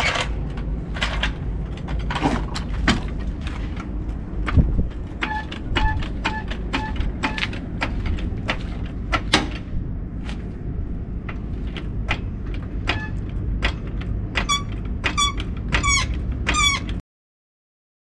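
Hydraulic floor jack being pumped to raise a car: its handle and pivots squeak in a regular rhythm, about two squeaks a second, in two runs. Scattered metal knocks and clanks sound over a steady low rumble.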